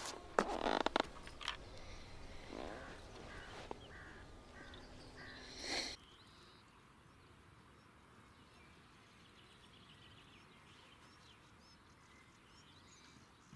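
Fishing tackle being handled: clicks and rustles, loudest about half a second in. About six seconds in the sound drops suddenly to quiet outdoor ambience with birds calling faintly.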